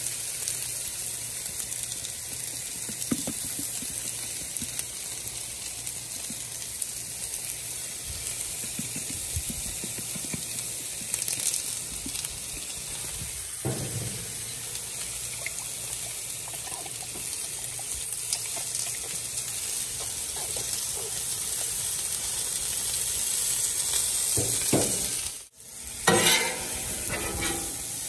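Chicken and vegetables sizzling on a hot Blackstone steel flat-top griddle, a steady high hiss. In the last couple of seconds a metal spatula scrapes and clatters across the griddle as the vegetables are turned.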